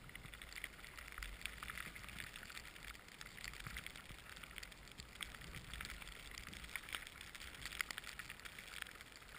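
Skis running through soft powder snow: a faint, steady swishing with many small ticks scattered through it.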